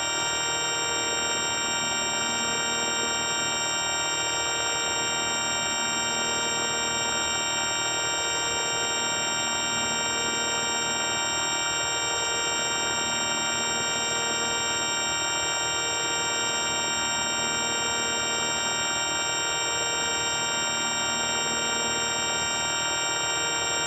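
Electronic sound effect: a steady, unchanging drone of many held tones stacked from low to high, with a faint pulsing about every two seconds.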